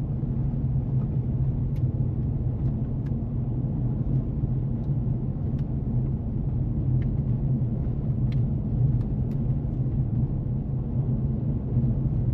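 Steady low rumble of road and engine noise inside a car driving on a highway.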